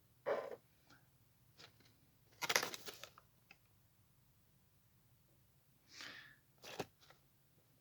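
Quiet handling noises: a few short rustles and knocks, the loudest about two and a half seconds in, and a sharp click near the end.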